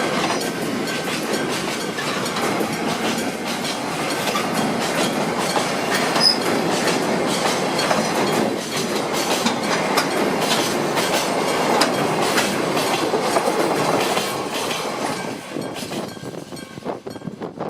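Nagoya Rinkai Railway freight train rolling past with its wheels clacking over the rail joints. The sound fades away over the last couple of seconds.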